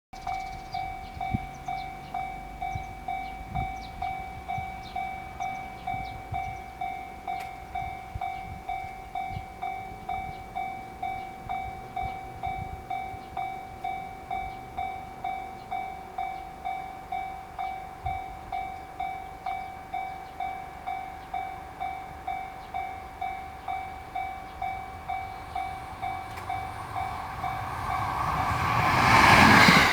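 Japanese level-crossing warning bell ringing in an even two-tone ding, about two strokes a second. In the last few seconds an approaching IGR Iwate Galaxy Railway train grows loud and drowns the bell.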